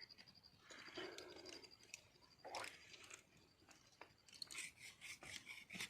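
Faint, steady high insect trill in dusk woodland that stops about four seconds in, over soft scraping and clicking handling sounds.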